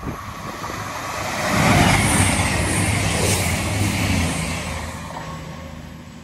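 CrossCountry Super Voyager diesel train passing through the station at speed without stopping: the hum of its diesel engines and the rush of the train swell about a second in, stay loud for about three seconds, then fade away.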